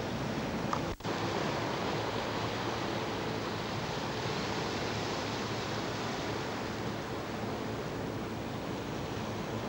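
Steady rushing wash of the sea with some wind, broken by a brief gap about a second in.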